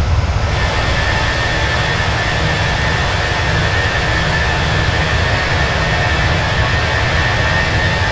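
Airbus A320 jet engines at takeoff power: a loud, steady roar with a thin whine held on top.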